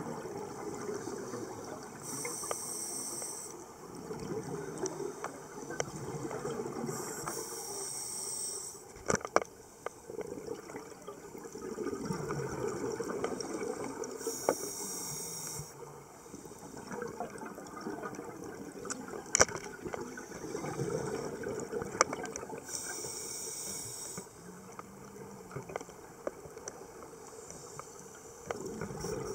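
Scuba breathing heard underwater: a demand regulator hissing on each inhalation, four times, with the bubbling of exhaled air between breaths. A few sharp clicks stand out.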